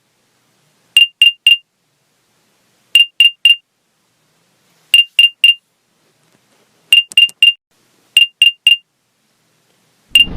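Electronic 'Find My AirPods' locator alert: groups of three short, high beeps at one pitch, repeating about every two seconds.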